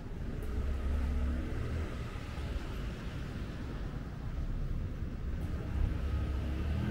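Outdoor street ambience with a low rumble that swells about a second in and again near the end.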